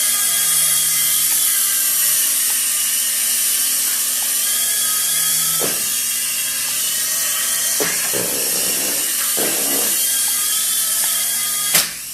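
Toy remote-control helicopter's small electric motors and rotors running with a steady whine, its pitch wavering slightly as it flies. Near the end comes a sharp knock as it crashes.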